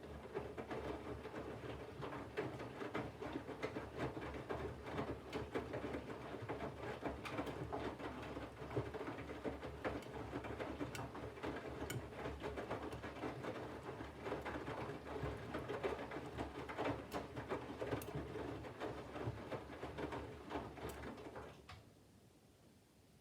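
Candy front-loading washing machine drum turning during the main wash: the motor hum with laundry tumbling and many small clicks and knocks. The drum stops about 21 seconds in, pausing before it turns again.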